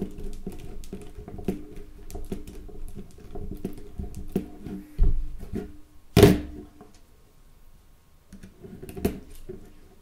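Small plastic and metal parts of a Nokia 3310 handled and pressed together on a table: scattered light clicks and rattles, with a heavier knock about five seconds in and a sharp, loud click just after six seconds.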